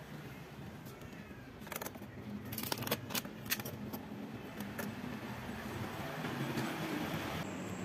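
Scattered clicks and clinks as a steel tumbler and things around it are handled and set into a refrigerator's freezer compartment, over a steady low hum.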